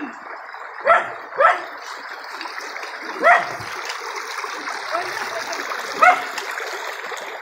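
A dog barking, four short barks spread over the few seconds, two in quick succession near the start. Underneath is the steady rush of a shallow stream running over rocks.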